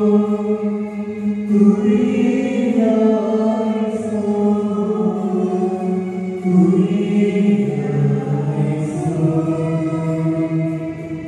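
Voices singing a slow devotional hymn in long, held notes that move from one pitch to the next every second or two.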